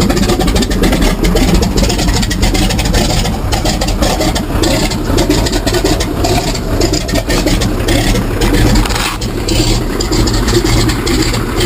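Floatplane engine running steadily after start-up, with a constant low drone.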